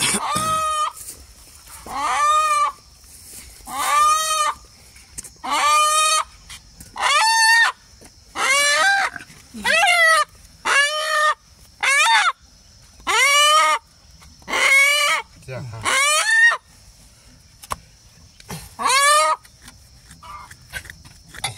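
A chicken calling over and over: about a dozen loud single notes, each under a second long and rising then falling in pitch, spaced a second or two apart, with a longer pause near the end before one last call.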